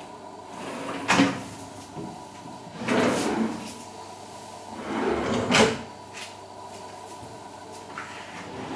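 Kitchen cabinet door shutting with a sharp knock about a second in. Then a kitchen drawer slides out on its runners around three seconds in, and slides shut again ending in a knock around five and a half seconds.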